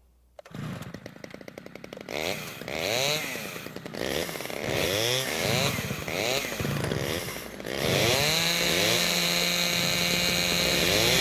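Chainsaw revving up and down over and over, each burst of throttle rising and falling in pitch. For the last few seconds it is held steady at high revs.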